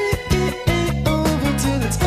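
Background music: a song with a steady beat and held melody notes.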